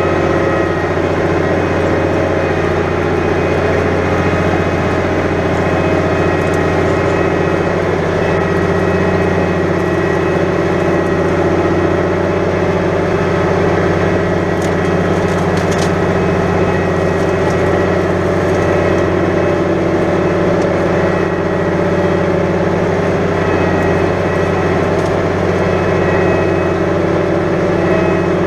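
New Holland 100-90 tractor's diesel engine running steadily at a constant pitch while pulling a plough through heavy, wet ground.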